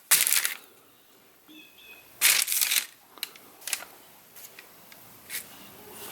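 Rustling handling noise in several short bursts, the longest about two seconds in, with a faint high chirp between them.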